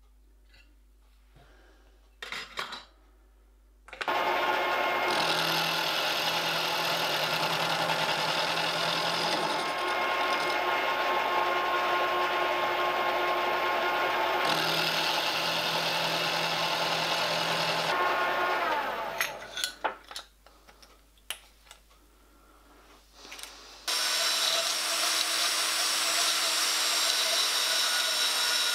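A milling machine's end mill cuts a 303 stainless steel part: a loud, steady machining noise starts suddenly about four seconds in and runs for about fourteen seconds, then the spindle winds down with a falling pitch. A few seconds later a metal-cutting bandsaw starts cutting the part, a steady noise running to the end.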